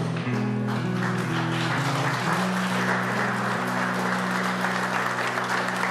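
A crowd applauding, the clapping building up about a second in and going on steadily, over background music of held low notes that change pitch every half second or so.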